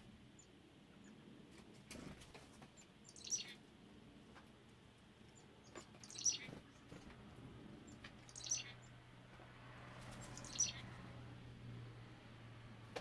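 A bird calling four times, each call a short high note sliding downward, spaced two to three seconds apart.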